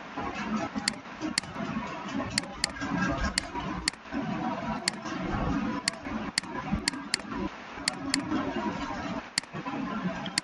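Computer mouse clicking about fifteen times at an uneven pace, some clicks in quick pairs, over a steady low background noise.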